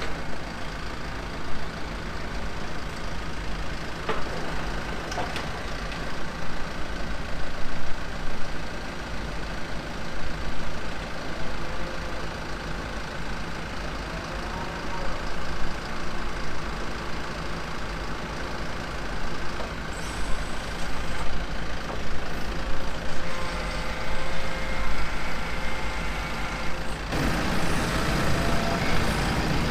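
Farm loader's engine running steadily, with a few knocks and clanks, growing louder near the end.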